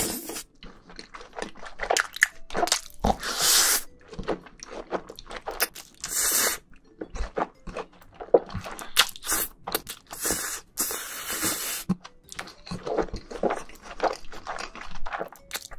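Close-miked mouth sounds of eating jjajangmyeon: about three long slurps of sauce-coated noodles, with wet chewing and smacking in between.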